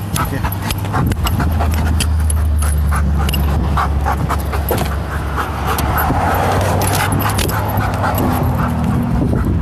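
Police drug-detection dog sniffing along a vehicle's body: rapid short sniffs and clicks throughout, over a steady low hum. A rushing swell rises and falls about two-thirds of the way through.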